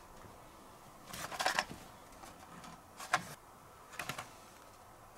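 Carded Hot Wheels cars in plastic blister packs being handled and set down: three short bouts of clicking and rattling, about a second in, about three seconds in and about four seconds in, the first the longest.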